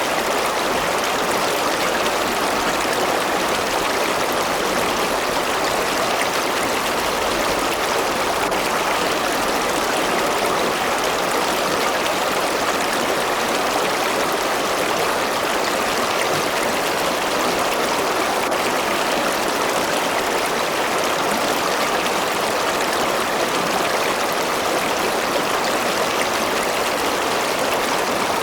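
A river or stream flowing over rocks: a steady, even rush of water with no breaks.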